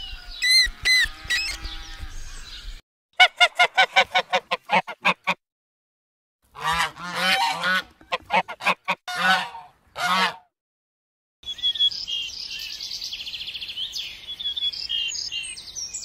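A flock of domestic geese honking in two runs of quick, repeated honks with a short silence between them. Higher, rapid bird chirping follows near the end.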